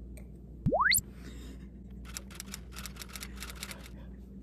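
A single tone sweeps quickly upward from very low to very high in about a third of a second, like an added swoosh sound effect, and is the loudest sound. Soft breathy puffs of stifled giggling follow, several a second.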